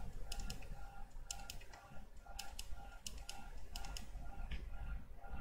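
Computer keyboard typing in short bursts of a few keystrokes at a time. Under it a faint electronic whine from the computer pulses about three times a second.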